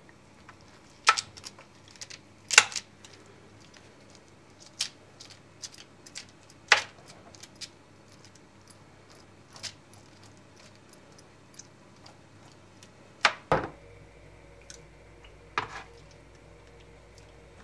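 Irregular clicks and clacks of hard objects being handled and set down, with a few louder knocks. A low steady hum comes on about 13 seconds in and keeps going.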